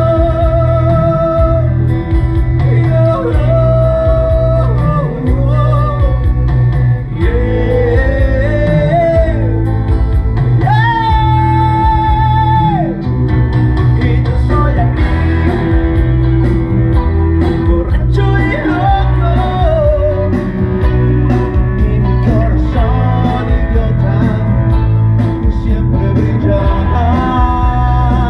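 A man singing into a microphone over loud amplified music with a heavy bass, his voice carried through the PA; he holds one long note about eleven seconds in.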